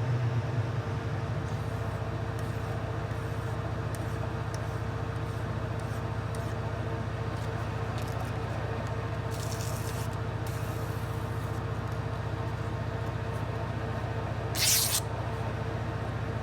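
An electric shop machine running with a steady hum. A short hiss comes about two-thirds of the way in, and a louder brief hiss near the end.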